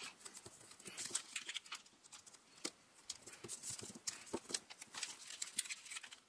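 Origami paper rustling and crackling faintly as fingers squash-fold and crease it against a tabletop, in irregular small clicks and scrapes.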